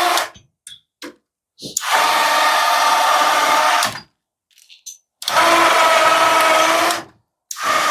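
A small 12-volt DC electric winch motor running in repeated runs of about two seconds with short pauses between them, pulling the copper windings out of a washing machine motor.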